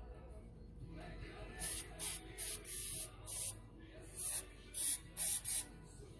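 Short hissing spray blasts, about nine in quick succession beginning a second and a half in, each lasting a fraction of a second.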